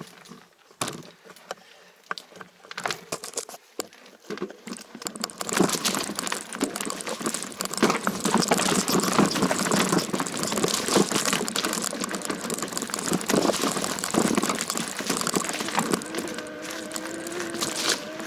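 Mountain bike riding over a rough dirt trail: a dense crackle and rattle of tyres on dirt, roots and leaves and of the bike's parts shaking. It starts about five seconds in, after a quieter stretch with a few clicks.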